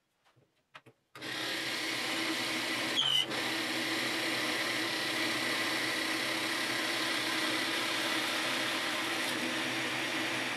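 Drill press running with a large Forstner bit boring a round hole into a wooden blank. It starts abruptly about a second in and runs steadily, with a brief louder, higher squeal about three seconds in.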